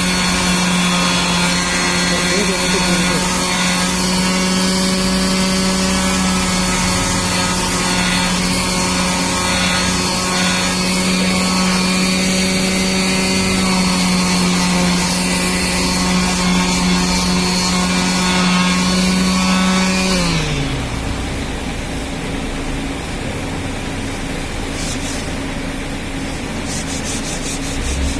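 Electric power tool motor running steadily on wood, then switched off about two-thirds of the way through, its pitch falling as it winds down. Rubbing and scraping on wood follow.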